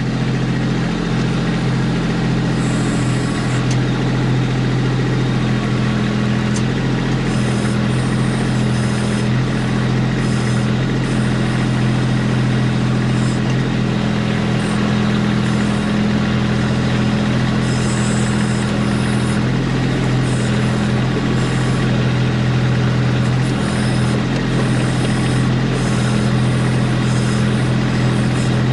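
Kubota B2650 compact tractor's three-cylinder diesel engine running steadily at an even speed.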